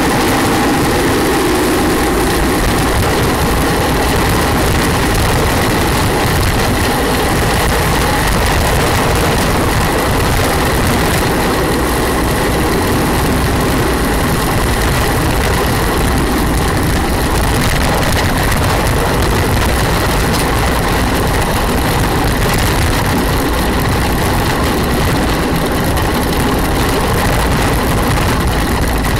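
Gravity-racing cart coasting fast downhill: a steady rumble of its wheels rolling on rough asphalt, mixed with wind rushing over the microphone, with a thin steady whine underneath.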